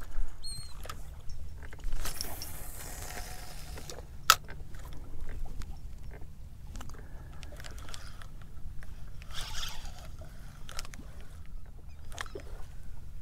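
Water slapping against a small boat's hull over a low, steady wind rumble, with scattered sharp clicks from a spinning reel and rod being handled, the loudest about four seconds in. A few short bird calls come near the end.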